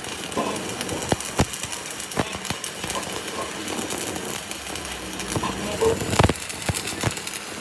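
Hand work on a truck rear axle: a handful of sharp knocks and clicks at uneven intervals, the loudest about six seconds in, over a steady background hiss.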